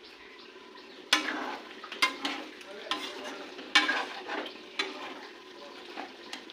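Food frying in a pan with a steady sizzle. From about a second in, a spatula scrapes and stirs through it roughly once a second.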